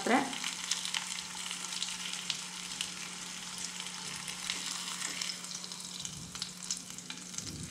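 Hot oil sizzling and crackling softly around fried king fish slices in a nonstick frying pan turned down to low heat, with light touches of a slotted spatula as the slices are lifted out.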